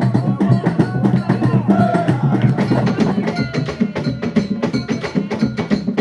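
Live traditional Central African dance music: drums and sharp wood-block-like strikes beating fast and dense, with voices singing over them.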